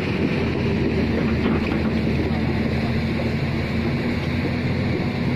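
An engine running steadily at a constant pitch, with no revving or change.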